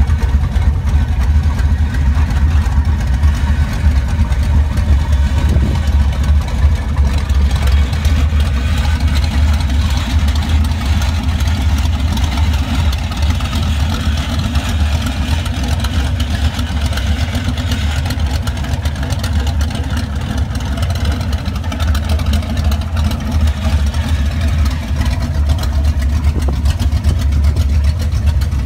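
A 347 stroker small-block V8 in a 1967 Ford Mustang idling steadily, with a deep, even low end and no revving.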